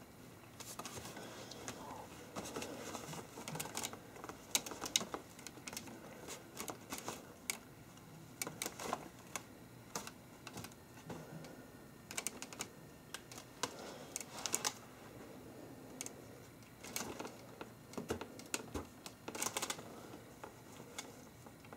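Irregular light clicks and taps, a few close together at times, with soft rustling between them.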